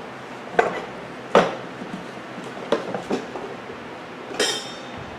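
Crockery being handled: a handful of separate hard knocks and clinks, the one about four seconds in ringing brighter.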